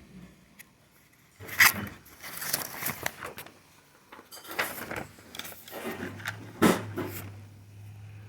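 Handling noises: a series of irregular knocks, clicks and rustles as objects are picked up and moved about, with a low steady hum coming in about six seconds in.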